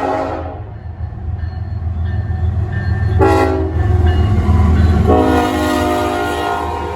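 Diesel locomotive horn on CSX 4749 blowing a crossing signal: a long blast ends just after the start, a short blast comes about three seconds in, and a long blast begins about five seconds in, over the steady low rumble of the train.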